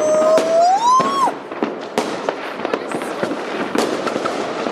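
New Year fireworks cracking and popping densely and continuously. In the first second a whistling tone holds its pitch, then rises and cuts off.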